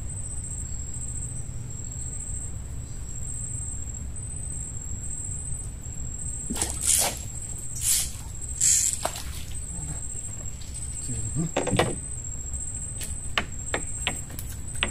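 Insects chirring steadily in a high, pulsing tone over a low rumble, with a few brief loud rushing noises about six to nine seconds in and some sharp clicks near the end.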